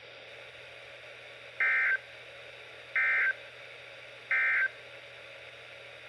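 Emergency Alert System end-of-message data tones (the EOM "NNNN" code) on NOAA Weather Radio, played through a Midland weather radio's speaker. Three short, identical buzzy bursts about 1.3 seconds apart signal the end of the alert message.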